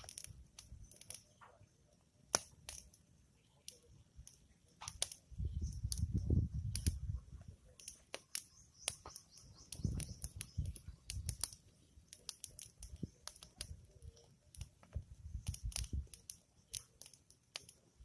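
Open wood fire of dry sticks and branches crackling, with many sharp, irregular pops and snaps as it blazes. A low rumble swells about five seconds in and again near ten seconds.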